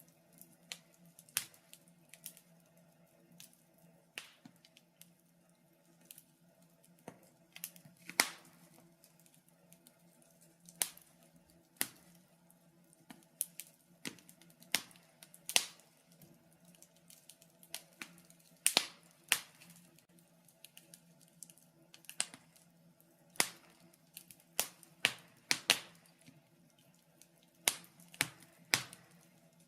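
Wood fire burning in a fireplace: irregular sharp crackles and pops, sometimes several in quick succession, over a faint steady low hum.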